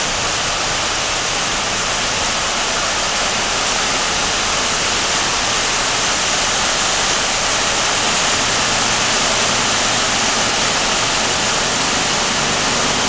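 Rain falling steadily: a loud, even hiss that holds without a break.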